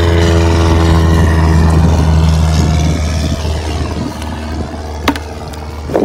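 A steady, low, pitched engine drone. It drops in level after about three seconds and fades toward the end. A single sharp click comes about five seconds in.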